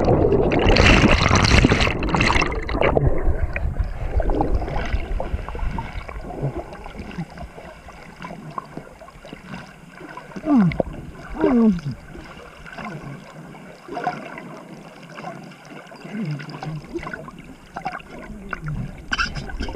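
Pool water splashing, then gurgling around an action camera that has gone under the water. The splashing is loud in the first few seconds, and the gurgling after it is quieter and uneven.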